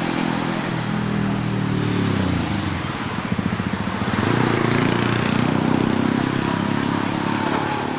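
Motor vehicle engines passing by, a steady engine hum whose pitch rises and falls, dipping about three seconds in and swelling again soon after.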